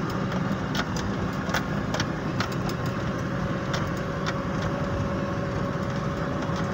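Vehicle engine running steadily, heard from inside the cab, with scattered light clicks or rattles and a faint steady whine.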